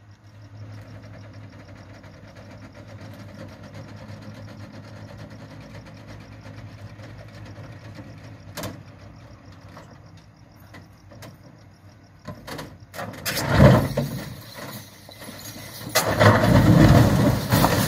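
Heavy truck's diesel engine idling steadily, then loud bursts of engine noise, one about 13 seconds in and a longer one over the last two seconds, as the truck pulls forward and the marble block slides off its tilted bed.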